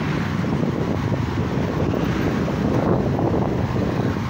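Wind buffeting the microphone of a slowly moving motorcycle, over a steady low rumble of engines in slow traffic.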